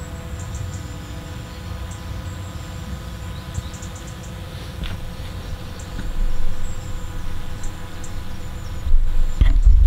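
Steady multi-tone whine of a DJI Mavic 2 Enterprise Dual quadcopter flying, with short high chirps now and then and low rumbles of wind on the microphone about six seconds in and near the end.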